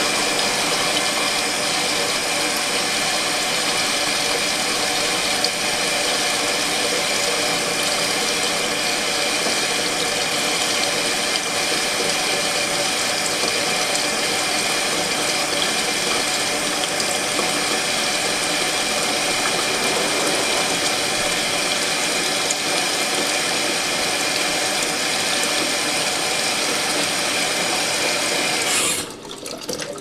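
Kuppet twin-tub portable washer's wash tub agitating a load of towels and a rug in water: a steady motor hum with churning water. It stops about a second before the end.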